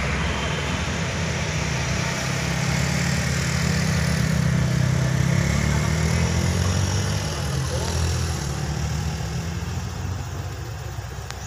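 Engines of passing road traffic (trucks, a pickup, cars and motorcycles) working round a hairpin bend: a low engine drone that swells in the middle and eases off near the end.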